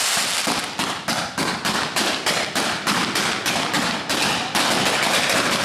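Firecrackers exploding in rapid succession at about four bangs a second, building into a denser, louder crackle about four and a half seconds in.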